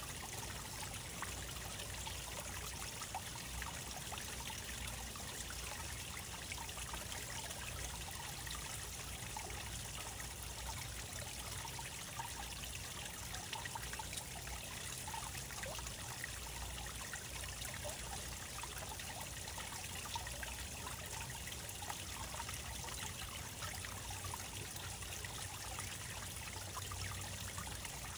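Water trickling steadily into an aquarium, splashing lightly onto the surface.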